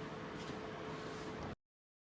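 Faint steady room hiss with a low hum, which cuts off abruptly to silence about one and a half seconds in as the recording ends.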